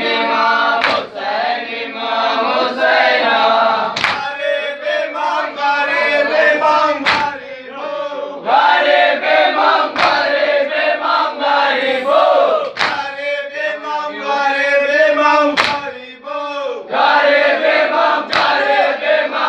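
A group of men chanting a mourning chant (nauha) in unison, punctuated by a loud collective slap about every three seconds, seven times: chest-beating (matam) in time with the chant.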